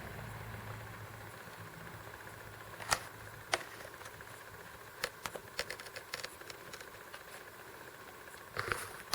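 Light clicks and knocks of the jack's assembly hardware and parts being handled: two sharper knocks about three seconds in, then a run of small clicks, and a brief rustle near the end, over a faint steady hum.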